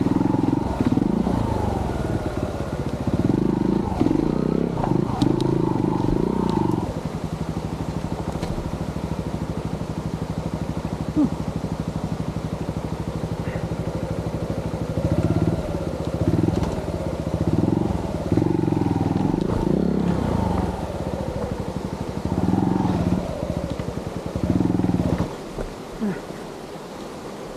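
Yamaha TY-S 125F trials motorcycle's single-cylinder four-stroke engine pulling uphill, revving up and down in bursts of throttle with a steadier stretch in the middle. Near the end the engine sound drops away.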